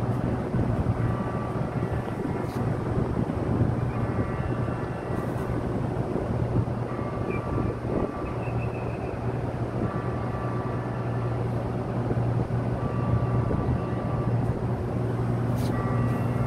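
Steady low drone of a ship's machinery, with faint higher whining tones that come and go.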